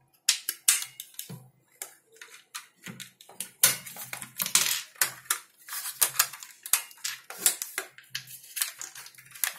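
Irregular clicks and knocks of hard rifle parts being handled and pressed together, with a metal screwdriver tapping against them, as the bolt assembly and steel spring-lock pin are worked into the receiver of a homemade airsoft rifle.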